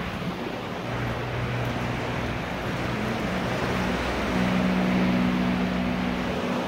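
Heavy downpour and strong storm wind: a dense, steady rush of rain noise. A low steady drone joins about a second in and grows stronger toward the end.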